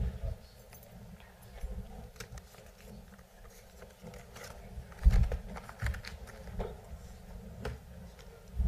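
Scattered clicks and knocks, with a low thump about five seconds in and another near the end: handling noise around a microphone as it is set up.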